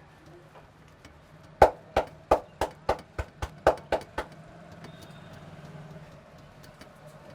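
About ten sharp hand slaps in quick succession, roughly three a second and speeding up slightly, as a barber strikes the head with his hands in a head massage; the first is the loudest.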